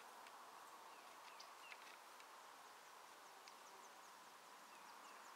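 Near silence: faint outdoor ambience, a steady soft hiss with scattered short, high bird chirps.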